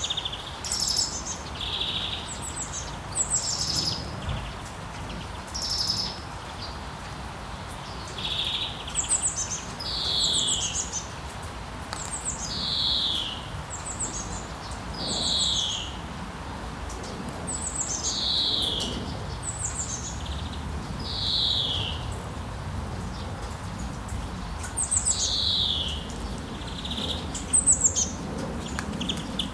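A songbird singing short phrases over and over, one every two to three seconds, each a high trill followed by a falling note, over a steady background hiss.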